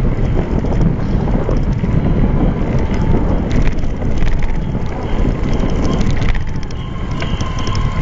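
Loud wind buffeting on a bicycle-mounted action camera's microphone while riding, with road rumble and scattered light rattling clicks.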